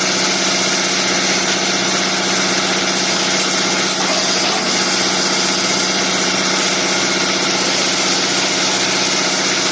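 Automatic wood furniture shape milling machine running steadily: a constant motor hum under an even hiss.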